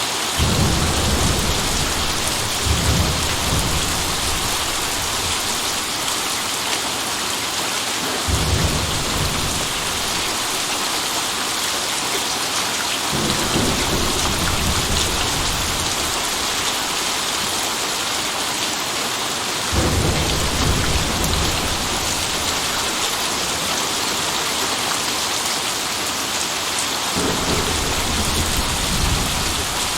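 Steady rain hissing, with thunder rumbling low several times, every five to seven seconds or so.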